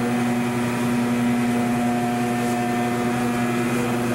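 Commercial pasta sheeting machine running: a steady electric motor hum made of a few fixed tones.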